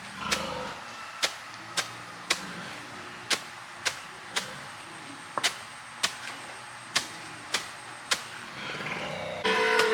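A series of sharp clicks or knocks, roughly two a second at uneven spacing, over a faint background. Just before the end a louder animal call sets in, most likely a pig.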